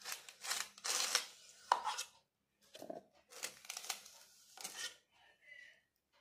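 A steel spoon scraping and scooping thick, chilled ice-cream mixture in a steel bowl and into a steel mixer jar: about seven short, irregular scrapes.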